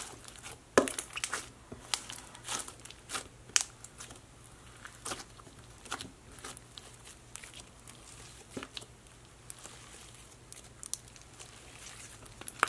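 Clear glue slime with jelly cubes being squished, pressed and stretched by hand, giving irregular sticky clicks and crackles.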